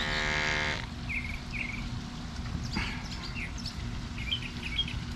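Sutro pool monitor's small motor humming steadily as it flushes water out of the device, cutting off about a second in as the flush ends. Birds chirp now and then afterwards.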